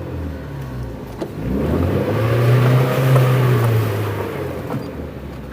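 The 2.2-litre engine of a Leopard Black King Kong 4WD SUV running under load, its pitch and loudness rising about two seconds in as it is revved harder, then easing off near the end.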